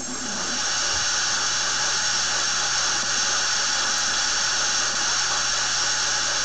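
A steady hissing noise that swells in over the first second and then holds level, with a faint low hum beneath.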